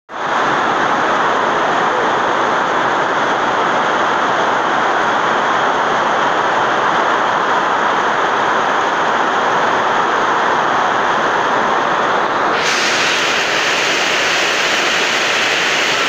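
Heavy rain falling steadily on trees and bare dirt ground, a dense even hiss. About three quarters of the way through it turns abruptly sharper and hissier.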